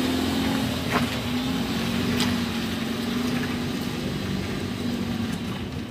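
An engine running steadily, a low even hum, with two light clicks about one and two seconds in.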